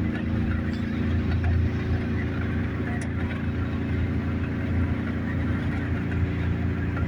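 Vehicle on the move, heard from inside the cabin: a steady low rumble of engine and road noise with a faint hum.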